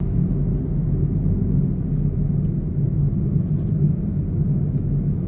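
A steady low rumble, loud and unchanging throughout.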